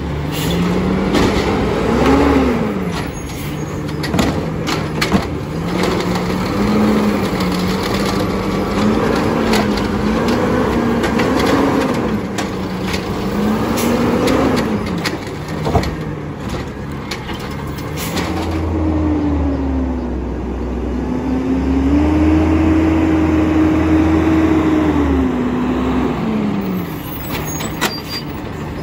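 Peterbilt automated side-loader garbage truck working a curbside cart: the engine revs up and down again and again as the hydraulic arm lifts, dumps and lowers the cart, with sharp knocks and bangs of the cart and lid. From about 18 s the engine holds a higher, steadier note with a low hum before dropping back near the end.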